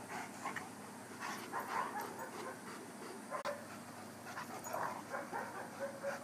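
A Bernese mountain dog and a Great Dane play-wrestling, making short, faint, scattered dog noises at irregular moments.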